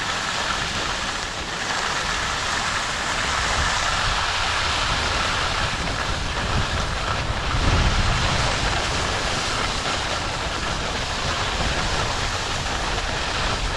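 Skis sliding and scraping over packed snow on a downhill run, a steady rushing hiss with wind buffeting the microphone, which swells into a stronger gust about halfway through.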